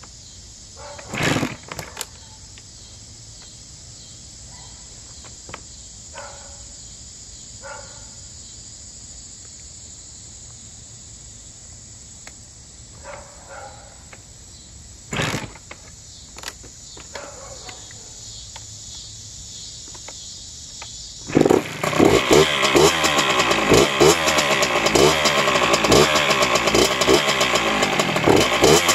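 Freshly rebuilt Honda CR85R 85cc single-cylinder two-stroke dirt bike being kick-started, with loud kick thumps about a second in and again about 15 seconds in. About 21 seconds in the engine catches on its first start after the rebuild and keeps running, revved up and down.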